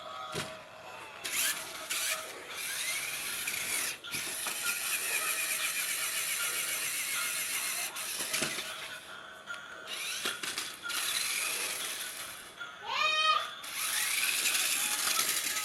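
Toy RC monster truck's electric motor and gears whirring in spurts, starting and stopping several times as it is driven.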